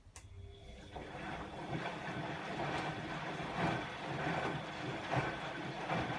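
Bosch WAE24162GB washing machine running part of its rinse cycle: a sharp click, then a rush of water and drum noise that swells in uneven surges for about five seconds and stops abruptly.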